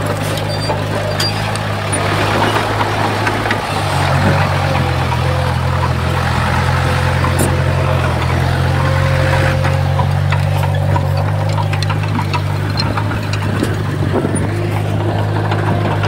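Heavy construction-machine diesel engine running steadily, its note stepping up and getting louder about four seconds in, with a few light knocks over it.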